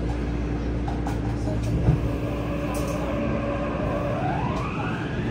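Interior sound of a Yokohama Blue Line 3000S subway car with Mitsubishi IGBT-VVVF traction inverters: a steady hum with a thump about two seconds in, then near the end the inverter's whine rising in pitch as the train starts to move off.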